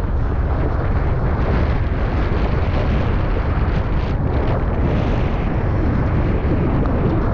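Strong wind buffeting the camera microphone in a steady heavy rumble, mixed with the rush of water as a kiteboard planes across choppy sea.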